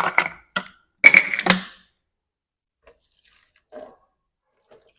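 Vinegar poured into a cleaning mixture of dishwashing liquid, Jik and bicarbonate of soda, splashing and dripping in a few short bursts in the first two seconds, then only faint handling sounds.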